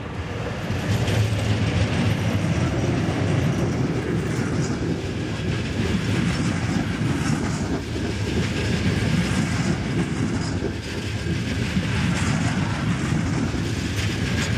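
Electric-hauled passenger train of ČD coaches passing close by at speed. There is a steady rumble of wheels on rail, with clickety-clack over the rail joints as the coaches go past.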